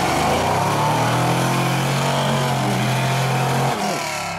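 Off-road trials vehicle's engine revving hard and held at high revs while it powers through deep mud with its wheels throwing spray, then dropping off near the end.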